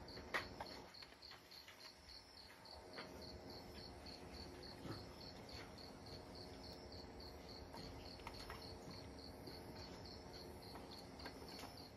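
An insect chirping in a steady rhythm of short, high-pitched pulses, about three a second. A sharp click comes about half a second in, with a few fainter clicks later.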